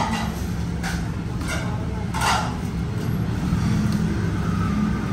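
Road traffic going past: a steady low rumble of engines, with a few short, sharper sounds over it, the loudest about two seconds in.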